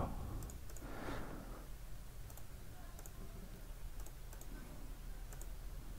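Faint, light clicks at irregular intervals over a low, steady hum.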